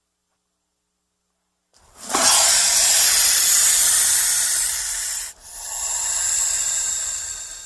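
A snake hissing twice: a long, loud hiss starting about two seconds in, then after a brief break a second, slightly softer hiss that fades away near the end.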